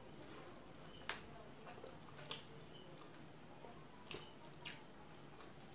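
Close-miked eating sounds: chewing momo and chowmein, with about four sharp wet mouth clicks spread across the few seconds.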